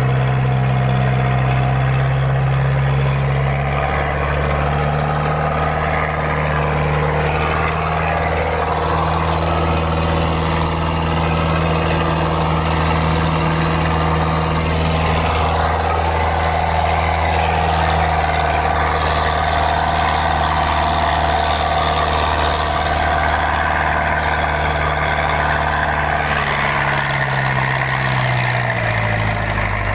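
Mitsubishi 4D31 four-cylinder diesel car engine powering a boat, running steadily. Its speed rises slightly about four seconds in, then drops briefly and picks up again near the end.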